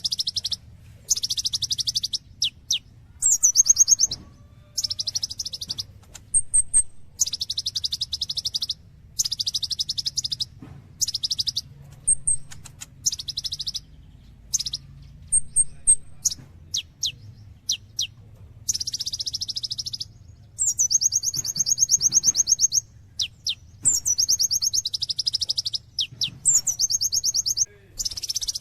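Song of a kolibri ninja (konin), a sunbird: high, fast trilled phrases of one to two seconds, repeated with short gaps, and thin sharp single notes in between. A faint low hum runs underneath.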